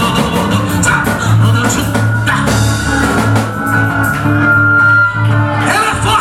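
Live band playing rock-style music, with electric guitar, a drum kit and a pulsing bass line.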